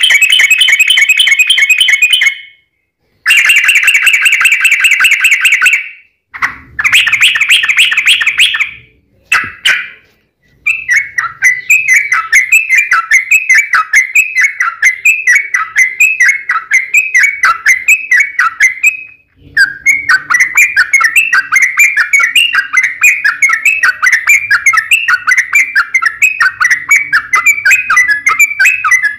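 Yellow-vented bulbuls singing loudly, a fast chattering long-trill song. First come rapid trills in bursts of two to three seconds, then long runs of quick repeated notes at about four a second.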